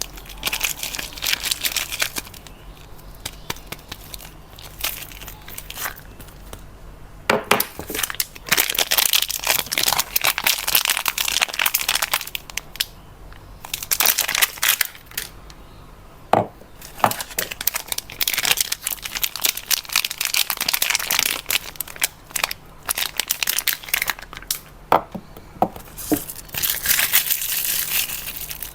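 Soap wrappers being crinkled and torn open in repeated bursts of rustling, with a few sharp clicks.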